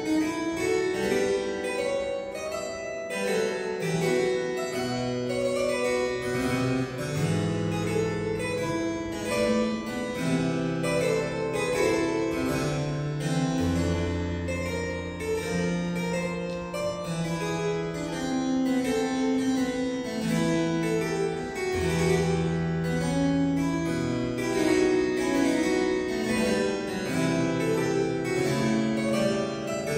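Solo harpsichord built by Martin Schwabe after Taskin, playing a slow prelude in F minor: a stream of plucked notes over held bass notes.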